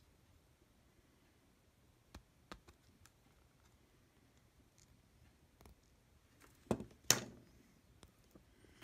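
Handling noise from the opened plastic housing of a cordless soldering iron: a few scattered light clicks and taps, then two louder knocks close together near the end.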